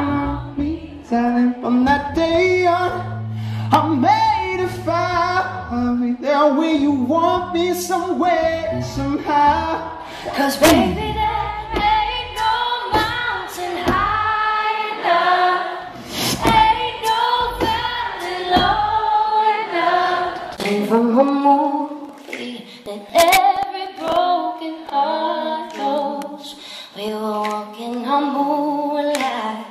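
Live pop song: a woman's voice singing the lead over electric bass, heard through a hall's PA. About two-thirds of the way through the bass drops out and the voices carry on nearly unaccompanied.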